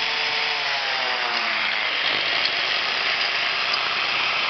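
DWT angle grinder with a toothed disc running free at full speed, about 11,000 rpm, a steady loud whine. It is being test-run on freshly fitted soft carbon brushes.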